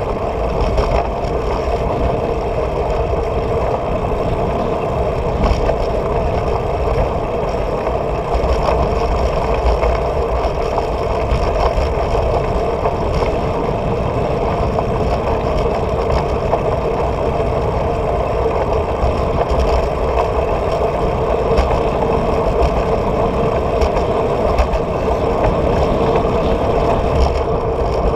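Steady rushing and humming from a bicycle riding along an asphalt street: wind on the handlebar-mounted camera's microphone over tyre and road noise, with a constant low rumble and an even hum.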